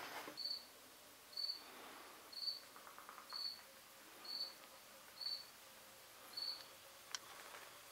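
A cricket chirping faintly, short high chirps evenly spaced about once a second, with a single sharp click near the end.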